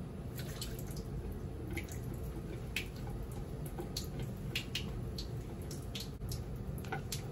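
Water running from a bathroom sink tap, with irregular splashes and drips as water is splashed onto the face during face washing.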